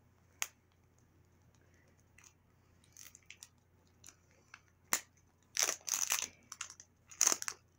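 Plastic wrapping of a toy surprise ball crinkling and tearing as it is peeled open by hand, with a sharp click near the start and another about five seconds in, then two short bursts of crinkling near the end.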